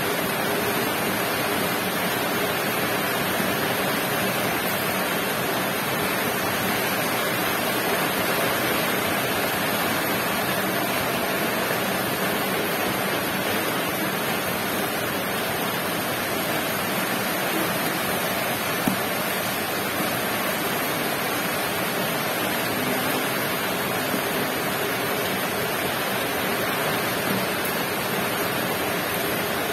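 A steady, even rushing hiss that does not change, with a couple of faint brief clicks.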